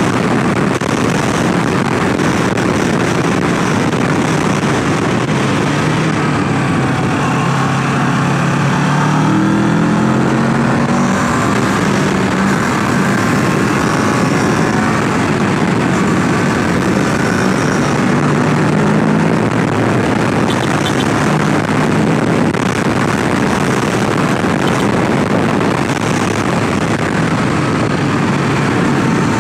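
Kawasaki Ninja 650's parallel-twin engine running under way, its pitch climbing in steps under acceleration about seven seconds in and again near twenty seconds. Heavy, steady wind rush on the microphone runs over it.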